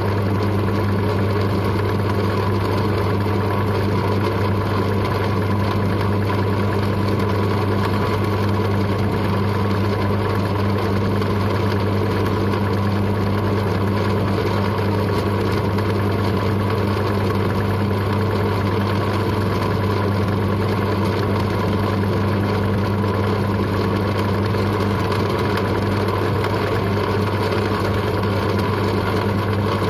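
Drill press running steadily with its electric motor hum while a 4 mm twist drill bores into St3 mild steel.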